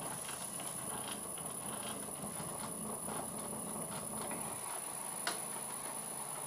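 Old Karger lathe running under belt drive from its electric motor: a steady hum and whir, with a wooden handle pressed down on the moving belt to damp the spindle vibration, which lessens but does not go away. A single sharp tick about five seconds in.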